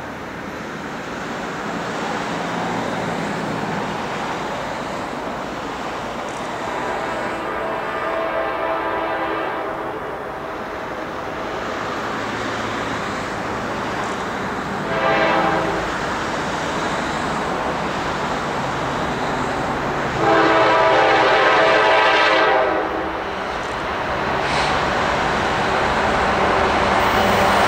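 Norfolk Southern coal train's diesel locomotives approaching, the lead unit sounding its horn: a long blast about seven seconds in, a short one around fifteen seconds, and a louder long one around twenty seconds. Under the horn the engines and wheels rumble, growing louder as the train nears.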